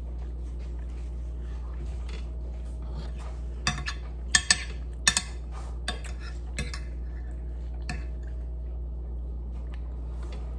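Metal fork clinking and scraping against a ceramic plate while food is scooped up, in a quick cluster of sharp clinks a few seconds in and a few lighter ones after, over a steady low hum.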